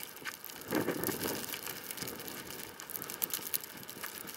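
Crunching and rustling of someone moving through deep snow, with many small crackles and a louder rustling burst about a second in.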